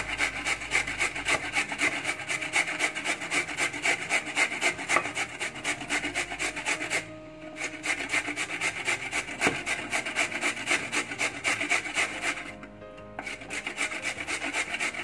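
Peeled raw beetroot scraped down the coarse holes of a stainless-steel box grater in quick, even strokes. It stops briefly twice, once about halfway through and once near the end.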